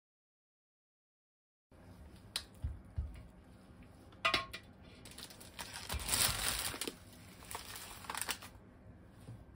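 Silence for nearly two seconds, then a few light knocks as an onion and an egg are set down on a kitchen tray. Then plastic packaging crinkles at length as bagged vegetables and a bag of panko breadcrumbs are handled.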